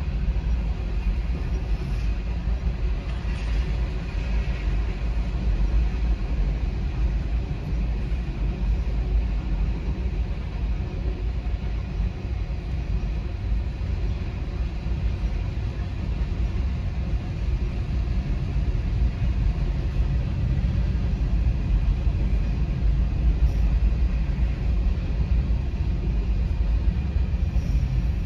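Low, steady rumble of a freight train rolling past a grade crossing, heard muffled from inside a car; it grows slightly louder near the end.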